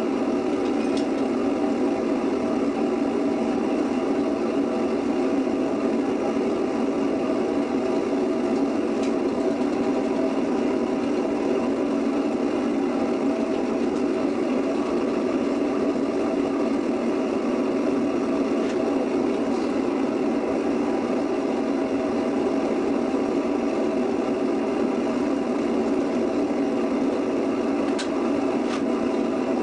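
Small metal-melting furnace running with a steady, unchanging rush of its burner and air blast while aluminum strips melt in the crucible, with a few faint ticks.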